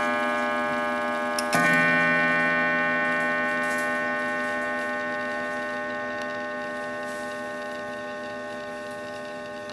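Bracket clock striking: one stroke about one and a half seconds in, its metallic ring of many overtones fading slowly, with the movement ticking faintly underneath.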